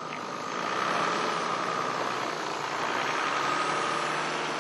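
Toyota Land Cruiser 100's diesel engine running on biofuel as the SUV drives past and pulls away, getting louder over the first second and then holding steady.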